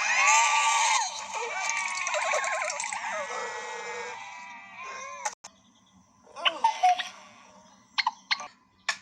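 Cartoon sheep voices bleating and shrieking, several at once with sliding pitch, fading away over the first four seconds. The second half holds a sharp click and a few short, sharp hiccup sounds.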